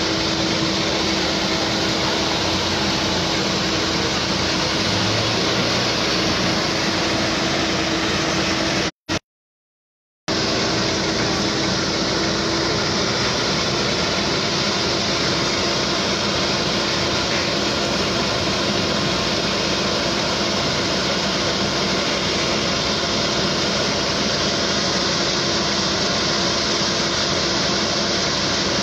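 Fire engines running their pumps: a steady loud mechanical noise, a constant hum under a broad hiss. The sound cuts out completely for about a second around a third of the way through.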